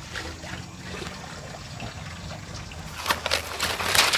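Water trickling from a lifted cloth keeper bag, then, about three seconds in, a loud, irregular splashing as live tilapia and water are tipped out of the bag into a basin.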